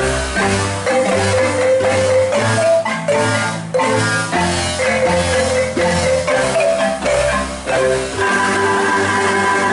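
An ensemble of wooden marimbas, including a deep bass marimba, playing a lively tune in several parts with quick mallet strokes. About eight seconds in, the bass line drops out and the ensemble holds a sustained rolled chord.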